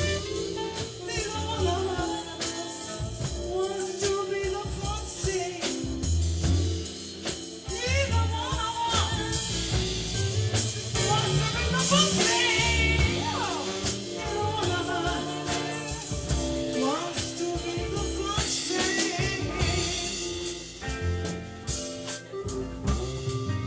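Live soul band playing an instrumental stretch of a slow ballad: drum kit, bass, guitars and keyboard under a lead melody that slides between notes.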